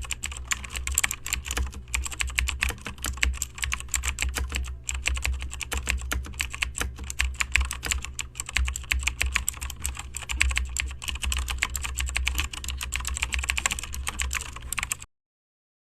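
Rapid, continuous clicking like typing on a keyboard, over a low steady hum; it cuts off suddenly near the end.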